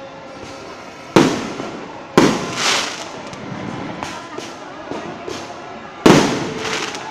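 Fireworks going off: three loud, sharp bangs, about a second in, a second later and near the end, each dying away over about a second, with fainter pops and crackling between.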